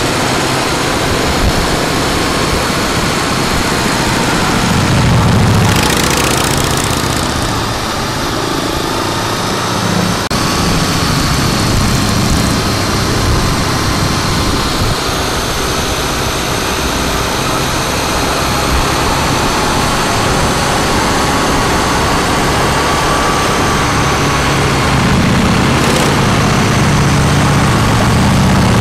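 Harley-Davidson Breakout's V-twin running at highway cruising speed through a Jekill & Hyde valve-controlled exhaust, with the exhaust valve set from fully open to closed, over steady wind and road noise. A brief whoosh comes about six seconds in.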